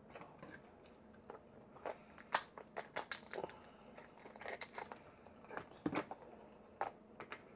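King crab leg shell being cracked and broken apart by hand: irregular sharp cracks and crunches, the loudest about two and a half seconds in.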